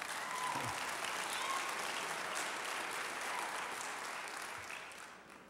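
Congregation applauding in a large sanctuary, a steady clapping that dies away near the end.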